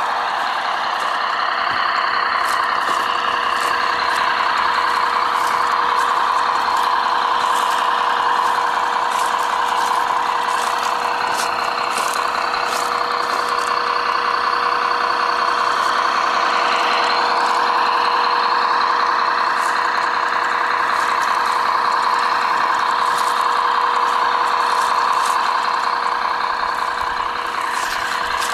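Radio-controlled model Peterbilt logging truck driving, its drive running steadily with a constant whine, with scattered clicks throughout.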